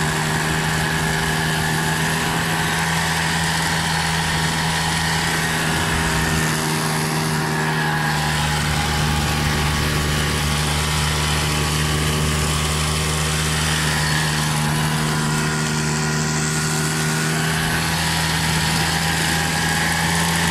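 Quad bike engine running at a steady, unchanging pitch as the machine is ridden across sand, a constant drone with noise over it.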